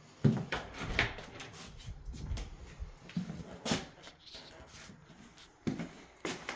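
Footsteps on a staircase: a string of uneven thuds and knocks as someone walks the steps.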